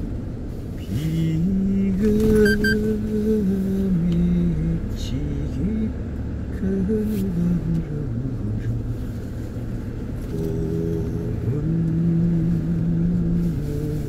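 Car driving on a country road, heard from inside the cabin as a steady low road and engine rumble. Over it runs a slow melody of long held low notes that change pitch in steps.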